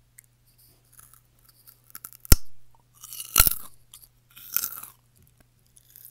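Close-miked biting and chewing of crunchy food: a sharp snap about two seconds in, then crunching chews roughly once a second.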